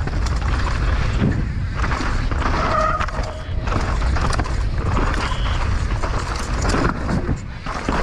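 Downhill mountain bike descending fast on a loose dirt and stone track: wind rushing over the camera microphone, knobby tyres crunching over dirt and rocks, and the bike's chain and frame rattling over the bumps.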